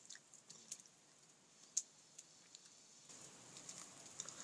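Near silence with faint, scattered small clicks.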